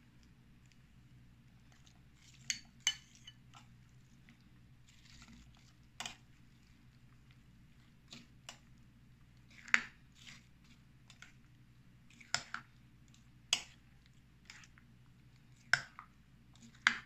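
Scattered light clicks and taps of kitchen utensils and containers being handled, about a dozen at irregular intervals, over a faint steady low hum.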